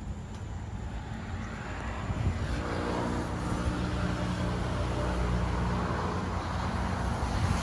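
Engine drone, steadily growing louder from about two seconds in, with a steady low hum over a wash of noise.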